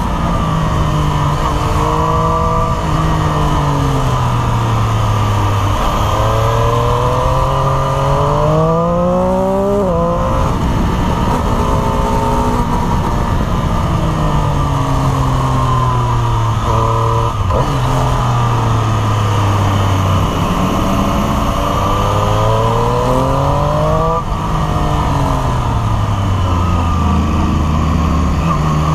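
Triumph Street Triple RS's 765 cc inline-three engine being ridden hard: its pitch climbs under acceleration, drops off sharply about ten seconds in, then winds down in steps through downshifts before rising again near the end. Steady wind rush on the microphone runs under it.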